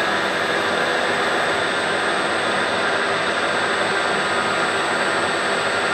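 Milling machine running steadily with a shell end mill taking a pass across a potato in the vise: an even mechanical whine with a hiss over it.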